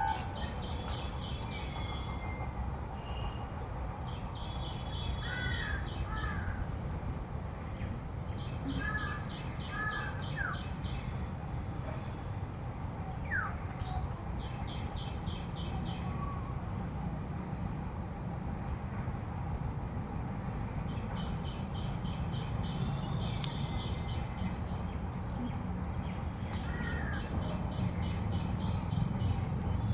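Outdoor ambience of insects and birds: a steady high insect drone, with repeated bursts of rapid ticking trills and scattered short bird chirps, over a low steady rumble.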